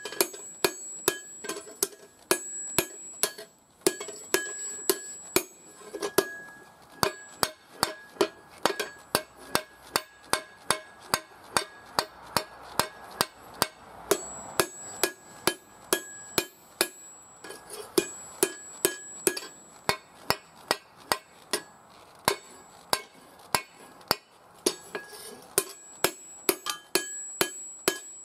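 Hand hammer forging a hot steel axe head on an anvil: steady blows about twice a second, each leaving the anvil ringing.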